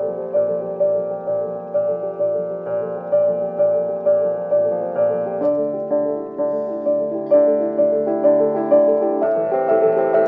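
Upright piano played solo, with its front panel opened: a steady flow of repeated broken-chord notes. The bass and harmony shift about halfway through and again near the end.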